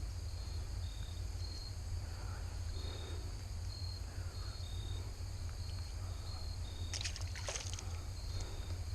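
Insects chirping, a short high note repeating about twice a second, over a steady low rumble of outdoor background noise, with a brief rustling clatter about seven seconds in.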